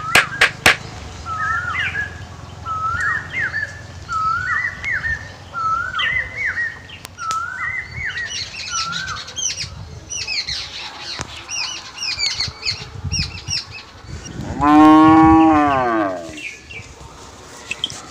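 A few hammer taps right at the start, then a bird calling in a short repeated phrase about once a second, followed by quicker high chirps. About fifteen seconds in a cow gives one long, loud moo that falls in pitch at the end.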